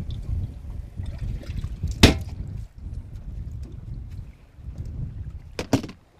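Low wind rumble on the microphone with water sounds, broken by two sharp knocks: a loud one about two seconds in and another near the end.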